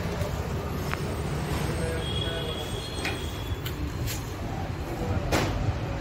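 Hard plastic vacuum cleaner attachments and hose being handled, giving several sharp clacks, the loudest near the end, over a steady low rumble.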